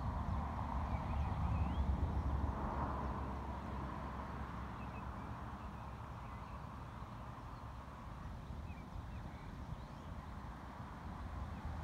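Distant thunder, a low rumble that swells in the first few seconds and then slowly dies away.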